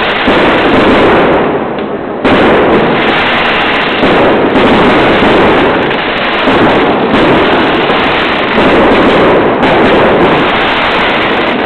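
Fireworks display: a dense run of bangs and crackling that is nearly continuous, easing briefly about two seconds in before coming back suddenly at full loudness.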